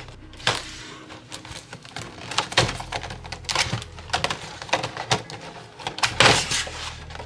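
Doll box being cut open with a craft knife: the thin clear plastic window and packaging crinkle and crackle in a run of scratchy bursts and clicks. The loudest crackles come about two and a half seconds in and again about six seconds in.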